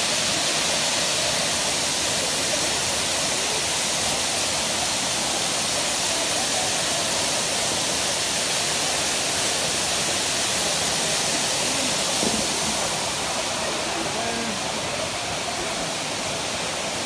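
Waterfall crashing down a wall of basalt columns: a loud, steady rush of falling water, easing slightly about three-quarters of the way through.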